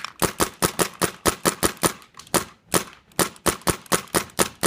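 Paintball gun fired rapidly, a quick run of sharp pops at about four to five shots a second with an uneven rhythm.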